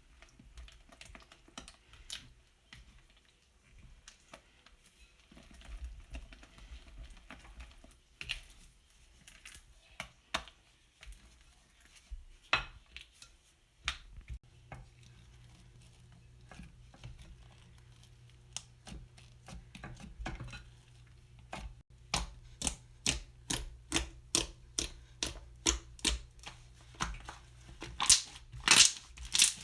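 Slime being worked by hand, giving scattered sticky clicks and pops. About two-thirds of the way in these turn into a regular run of louder clicks, about two a second.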